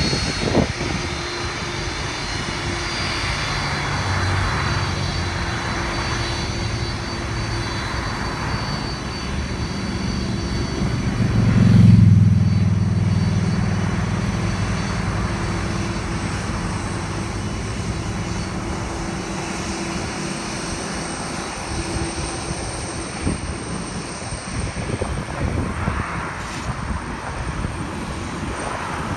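Boeing 747-400's four turbofan engines running at taxi power as the jumbo jet rolls along the runway past the listener: a steady jet drone with a high whine, swelling to its loudest about twelve seconds in.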